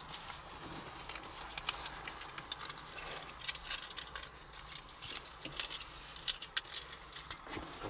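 A bunch of keys jingling and clinking in irregular bursts of small metallic clicks, sparse at first and busier and louder in the second half.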